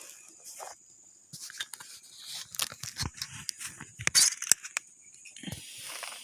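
Irregular rustling, clicks and small knocks close by, loudest about four seconds in, over a steady high-pitched insect trill.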